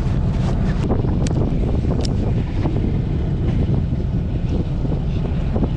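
Fishing boat's engine running with a steady low rumble while wind buffets the microphone, with a few faint sharp ticks about one and two seconds in.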